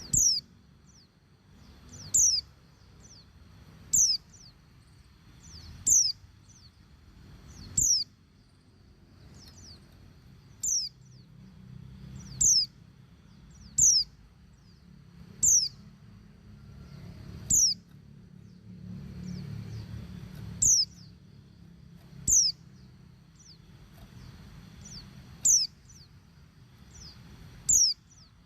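Female white-eye (pleci) calling: a short, high, downward-sweeping note repeated about every two seconds. It is the female's call to males, used to prompt them to sing.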